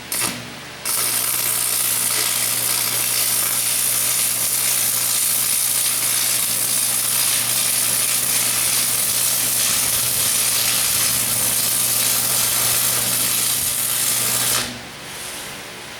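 Arc welding on steel channel: a short burst right at the start, then a steady weld run of about fourteen seconds that stops abruptly near the end.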